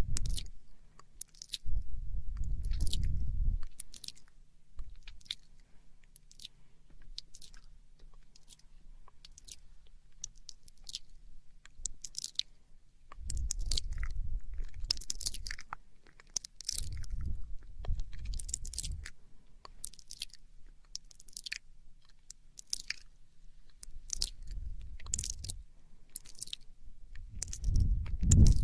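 Wet mouth sounds made close to a microphone: irregular sharp tongue clicks and smacks. Several stretches of low rumble come in between them.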